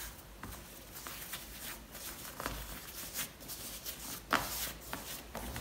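Hands shaping soft bread dough on a floured worktop: faint pats and rubbing, with scattered soft taps, the loudest about four seconds in.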